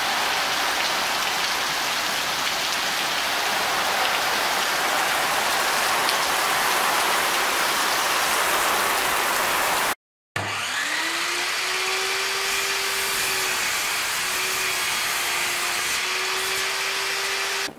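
Heavy rain falling, a steady hiss. About ten seconds in it cuts off, and a table saw motor spins up with a rising whine, then runs steadily while ripping a strip of black locust.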